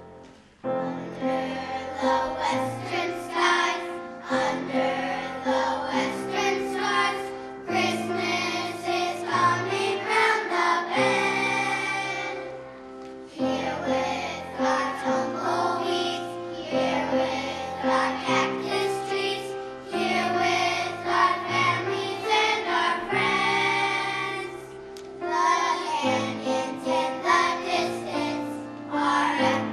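A group of young children singing a song together, with instrumental accompaniment under the voices.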